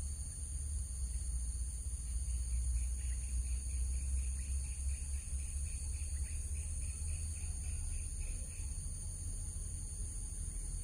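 Outdoor ambience: a steady low rumble, a constant high-pitched insect drone, and a quick chirp repeated about four times a second from about three to eight and a half seconds in.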